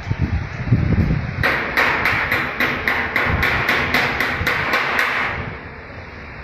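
Rapid, evenly spaced knocking, about four strikes a second for some four seconds, that stops short about five seconds in. A low rumble of wind on the microphone runs under it, heaviest in the first second.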